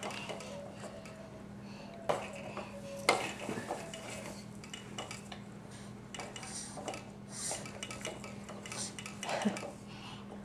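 Plastic push-along baby walker toy clicking and rattling as it is pushed over carpet, with scattered sharp clacks, the loudest about two and three seconds in.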